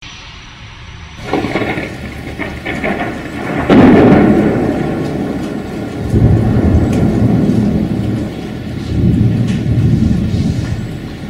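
Thunder rumbling in a rainstorm over steady rain. The loudest peal rises sharply about four seconds in and rolls on, with further swells near the middle and the end.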